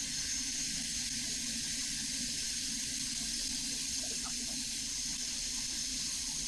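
Shopsmith running as a bandsaw, a steady even hiss of motor and blade.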